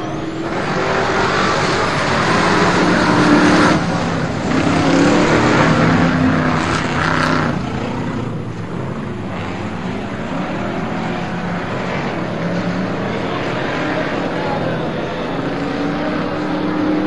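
A pack of V8 off-road race trucks running hard on a dirt track, engines revving up and down as they pass. They are loudest in the first seven seconds, then a steadier, farther-off drone.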